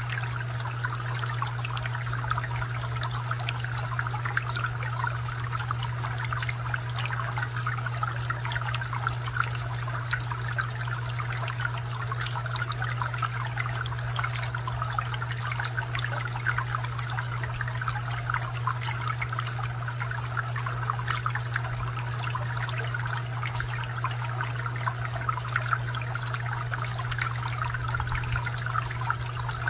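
Garden fountain water trickling and splashing steadily, over a constant low hum.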